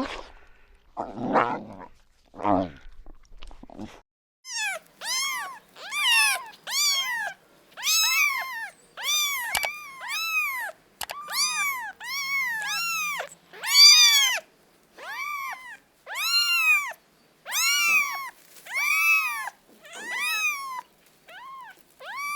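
Kitten meowing over and over: high meows that rise and fall in pitch, about one a second, starting a few seconds in after a couple of short low sounds.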